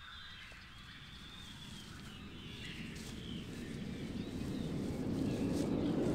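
Birds chirping in woodland ambience, with a low rushing noise that swells steadily louder, becoming the loudest sound near the end.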